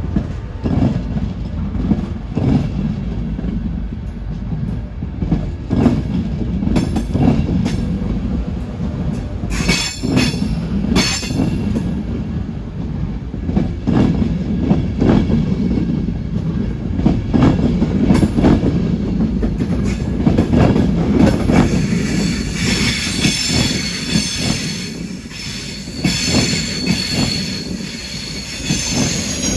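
An LNER InterCity 225's Mark 4 coaches rolling slowly past on their wheels, with a low rumble and irregular clunks and knocks from the wheels on the rails. About two thirds of the way through, a high-pitched wheel squeal sets in and carries on to the end.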